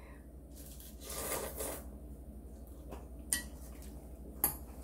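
Eating at a table: chopsticks clicking against bowls and a metal pot a few times, with a short slurp of instant ramen noodles about a second in.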